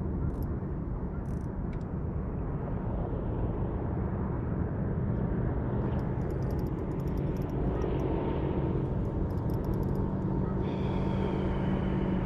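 Steady low rumble of a boat motor running, with a constant hum. Short bursts of rapid ticking come in during the second half.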